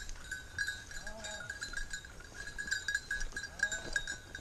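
A small bell on a working springer spaniel's collar jingling in irregular pulses as the dog quarters through cover. Two short wavering animal calls sound faintly, about a second in and near the end.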